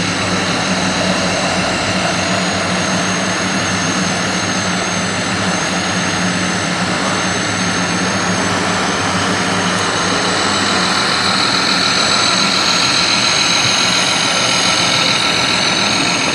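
Radio-controlled model construction trucks running: a steady engine-like idling drone with a thin high whine over it, the whine growing louder about two-thirds of the way in.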